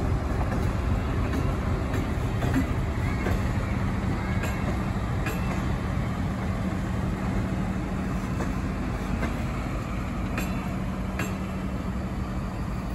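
Train running on the tracks: a steady rumble with a low hum and a few sharp clicks, easing slightly toward the end.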